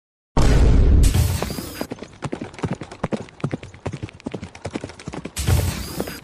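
Cartoon footstep sound effects: a quick, irregular run of clopping steps. Before them comes a short loud burst of noise with a low rumble, and a second burst follows near the end.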